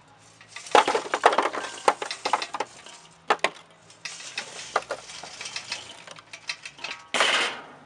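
Lit charcoal briquettes tumbling and clattering out of a metal chimney starter onto the coals in a Weber kettle grill, in two pours, one to each side of the drip pan, with a short louder rush of noise near the end.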